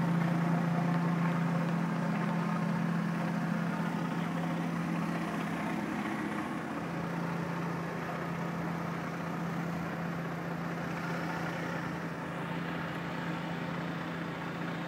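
Pressure washer running steadily, a constant engine-and-pump hum under the hiss of water jetting from a rotary surface cleaner onto concrete.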